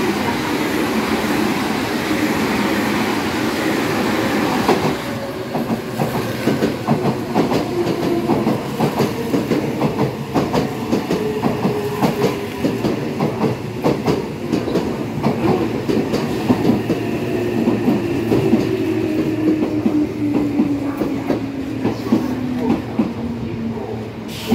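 Electric trains running past a station platform. First a JR 313-series train runs by on the far tracks with a steady rushing noise. From about five seconds in a Meitetsu 3100+2200-series express runs close alongside, its wheels clacking rapidly over rail joints, with a tone under the clatter that slowly falls in pitch.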